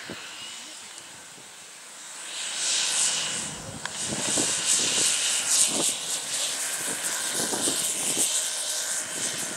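Large radio-controlled model Cessna 150 taking off: its engine and propeller run at full power, growing much louder about two seconds in and staying steady as it rolls and lifts off.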